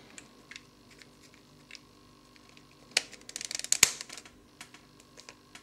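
Plastic pieces of a Square-1 puzzle clicking and rattling under the fingers as it is reassembled, with a burst of clicking about three seconds in that ends in one sharp snap as an edge piece is pressed into place.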